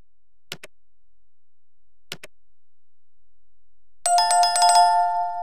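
Two quick double mouse clicks, then, about four seconds in, a notification bell sound effect ringing with a rapid run of strikes over two held tones: the sound of a subscribe-button animation.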